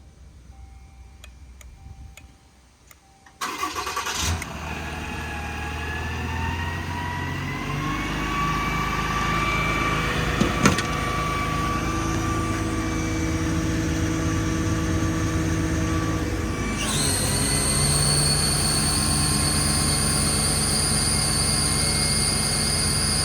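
Heavy truck machinery starting abruptly, rising in pitch as it comes up to speed and then running steadily; near the end a high-pitched whine joins the running.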